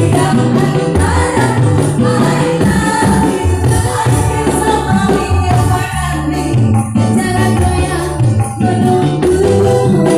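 Live dangdut song played loud through a PA: a woman singing into a microphone over a backing with a bouncing, repeating bass line and tambourine-like percussion.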